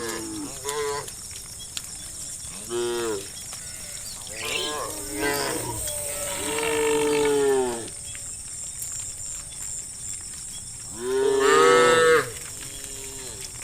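Cows mooing in a herd: about five separate moos, some short, a longer one about six seconds in and the loudest about eleven seconds in.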